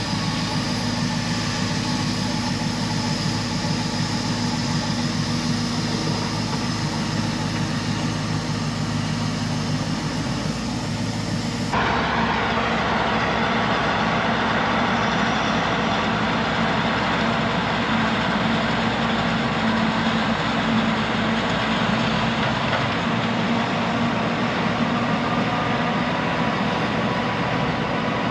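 Heavy farm machinery running steadily: a self-propelled forage harvester chopping standing corn into a silage truck driving alongside it, with the trucks' engines. The drone shifts abruptly about twelve seconds in and carries on.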